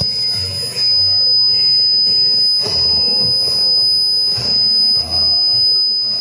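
Shortwave crystal radio reception played over speakers: a steady high-pitched whistle tone under a low hum that comes and goes, with two brief crackles of static. These are the tones the listener takes for HAARP transmissions.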